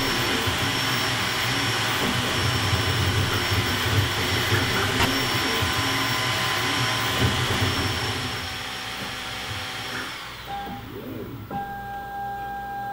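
Creality K1 Max 3D printer running: a steady whir of its cooling fans with a high whine. About ten seconds in the whine glides down and stops and the whir falls away as the print finishes, leaving a quieter steady hum.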